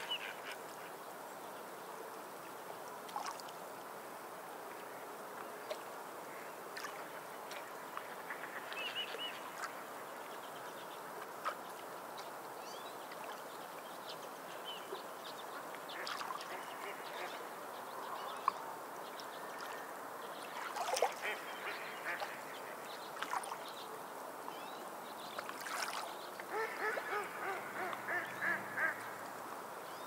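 Small waves lapping and splashing against shore rocks, a steady wash with scattered small splashes. A bird calls a few times, and near the end gives a quick run of repeated calls.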